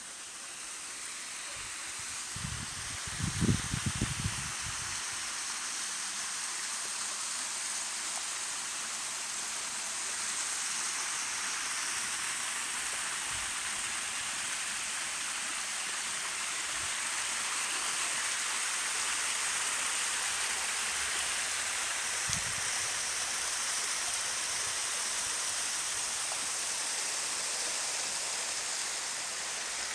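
Waterfall rushing steadily, growing louder over the first several seconds as it draws nearer. A few low thumps come about three seconds in, and one more later.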